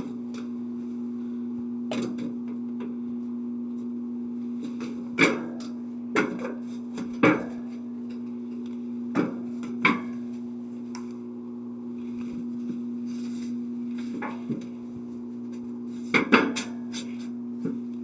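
Sheet-metal rear access panel of a refrigerator being fitted onto the cabinet: scattered sharp knocks and rattles as the metal panel meets the frame, about a dozen in all, over a steady low hum.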